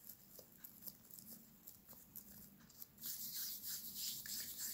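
Hands shaping soft yeast dough pieces into balls on a silicone mat: faint rubbing and light soft ticks, turning into a louder rubbing hiss about three seconds in.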